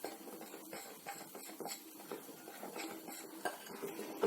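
A spoon stirring dry spiced flour in a mixing bowl: faint, soft scraping and light ticks.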